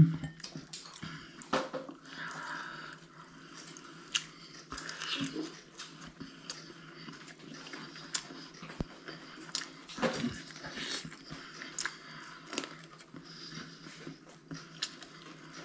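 Close-up eating sounds of a person biting and chewing barbecued chicken wing, with scattered short clicks and smacks.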